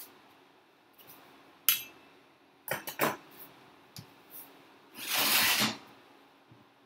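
Kitchen utensils and dishes being handled: a sharp clack about two seconds in, a quick run of clatters a second later, then a brief rushing scrape near the end.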